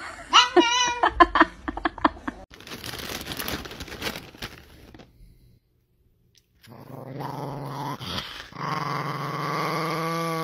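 Small dog growling with teeth bared: a long, steady low growl that starts about seven seconds in and carries on, after a few short high-pitched vocal calls in the first couple of seconds and a brief near-silent gap.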